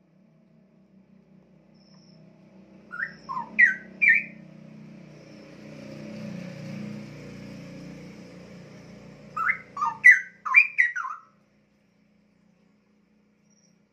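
Caged straw-headed bulbul (cucak rowo) singing two short bursts of loud, rich whistled notes that leap up and down in pitch, about three seconds in and again near ten seconds. A low hum builds in the background and stops during the second burst.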